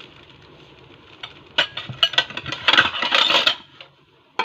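Cutlery and dishes clinking: a few sharp clinks about a second and a half in, then a denser clatter lasting about a second, and one more clink at the end.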